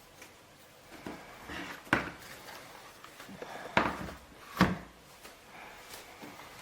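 Handling noise from a mechanical keyboard: a few scattered knocks and scrapes, the sharpest about two seconds in and two more near the middle, rather than steady typing.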